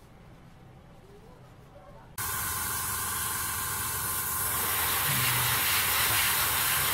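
Airbrush hissing with a steady stream of compressed air, starting abruptly about two seconds in after near quiet.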